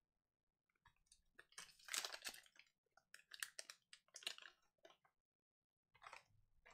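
Foil trading-card pack wrapper crinkling and tearing as it is opened by hand, faint, in a run of short crackly bursts from about a second in to near five seconds, with a little more rustle near the end.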